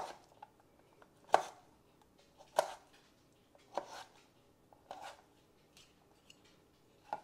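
Kitchen knife chopping a raw potato into small cubes on a plastic cutting board: a sharp knock each time the blade cuts through and hits the board, about eight slow, uneven chops, some in quick pairs.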